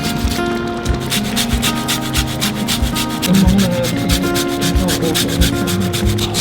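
A spatula scraping repeatedly against the pot while stirring thick, cooking pineapple jam, with background music under it.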